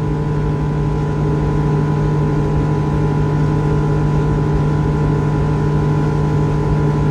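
Bass boat outboard motor running flat out at full throttle, a steady drone that holds one pitch, over a constant rush of wind and water.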